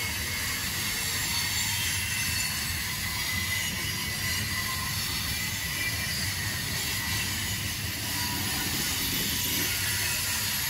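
Freight train rolling past: a steady rumble with wheel-on-rail noise.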